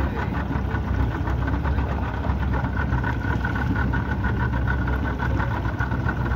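Engine of a small boat running steadily at low speed, an even drone with a fast, regular beat.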